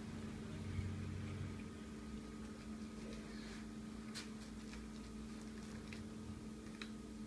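Faint scraping and soft crinkling as a table knife and a metal spatula slide under baked fish in an opened aluminium foil packet, with a few light clicks of the utensils, about four seconds in and near the end. A steady low hum runs underneath.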